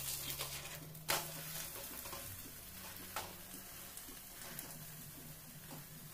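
Methi flatbread sizzling in oil on a hot tawa, a steady frying hiss, with a few sharp scrapes and taps of a metal spatula against the pan, the loudest about a second in.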